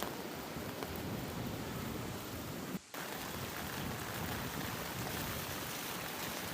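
Steady rain falling, an even hiss, cut by a brief gap just under three seconds in.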